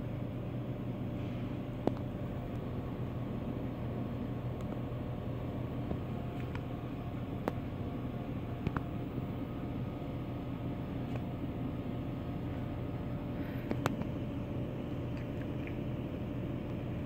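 Steady hum of a Dixie Narco DN5800 cold-drink vending machine's refrigeration unit running, with a few faint clicks.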